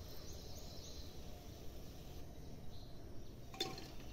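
Faint steady background noise, with a single metal clink about three and a half seconds in as a steel spoon goes into the aluminium pot.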